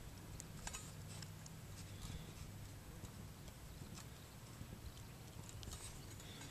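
Faint scattered clicks and handling noise as small metal micro-clips from a model rocket launch controller are fastened onto the igniter wires, over a quiet outdoor background.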